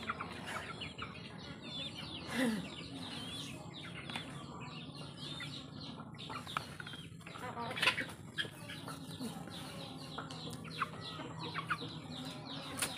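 A flock of chickens: many chicks peeping in short, quick chirps, with mother hens clucking among them.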